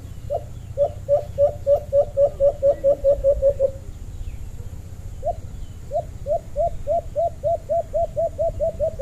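A caged alimokon decoy dove cooing: two runs of short low hoots, each run speeding up as it goes, the first stopping about halfway through and the second starting again a couple of seconds later.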